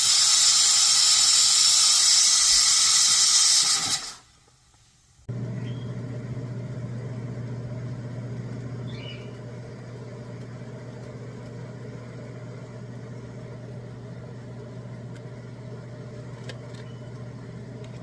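Pressure cooker whistle, a loud hissing shriek of escaping steam, lasting about four seconds before cutting off sharply. After a short gap, a steady low hum runs on.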